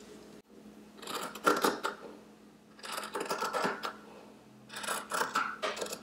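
Scissors cutting through woven cloth, blades snipping and shearing in three runs of strokes.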